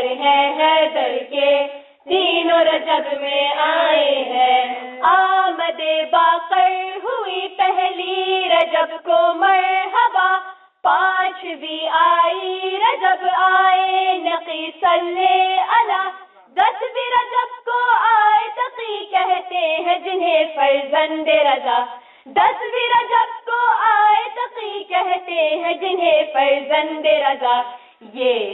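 Young girls singing an Urdu devotional song (qasida) in sung phrases separated by brief breaths every few seconds.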